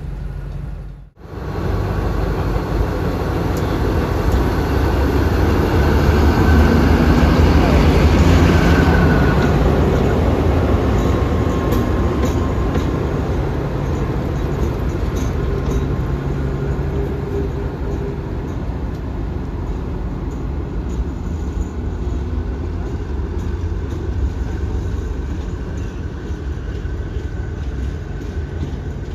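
SRT Alsthom diesel-electric locomotive No. 4118 departing Surat Thani station, running light with no train behind it. After a brief break about a second in, its diesel engine rumbles, growing louder as it passes and loudest around six to ten seconds in. The rumble then fades slowly as the engine pulls away.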